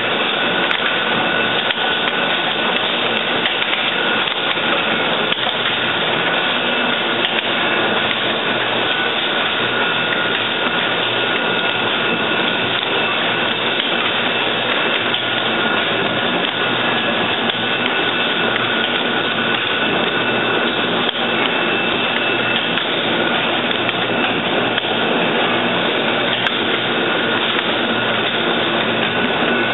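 Automatic hypodermic needle assembly machine running: a steady, dense mechanical clatter with a faint high whine.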